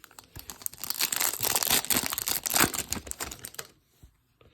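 Foil trading-card pack wrapper crinkling and tearing in the hands, a dense crackle that starts about half a second in and stops after about three seconds.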